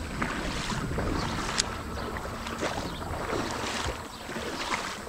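Water splashing and lapping around a kayak, with wind buffeting the microphone and one sharp click about a second and a half in.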